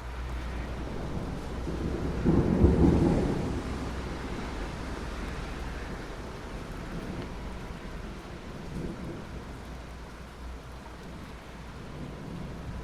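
Steady rain with a low rumble of thunder that swells about two seconds in, peaks soon after and rolls away over the next few seconds.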